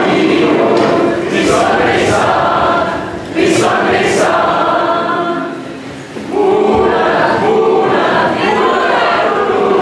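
A large group of teenagers singing a song together while dancing.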